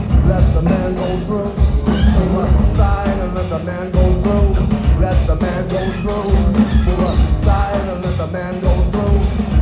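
Live rock band playing loudly, with a heavy bass line and drums under a wavering melodic line and no words sung.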